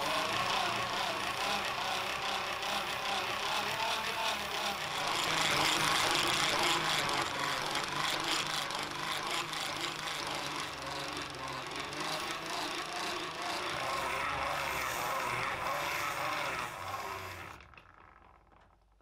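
Knife blade grinding against the spinning abrasive wheel of a vintage American Grinder Manufacturing bench grinder: a steady grinding hiss that fades out near the end.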